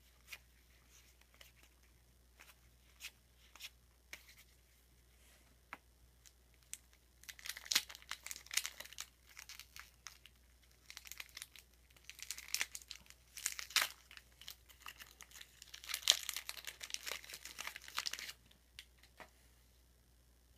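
A 1992-93 Topps basketball card pack's wrapper being torn open by hand. Scattered light clicks of handling come first, then three spells of crinkling and tearing a few seconds each, the last cutting off suddenly.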